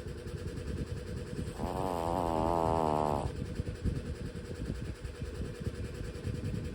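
A sleeping pug snoring: a low, rough rumble of breath throughout, with one longer wavering, whistly snore about one and a half seconds in that lasts about a second and a half. This is the noisy breathing of a flat-nosed breed.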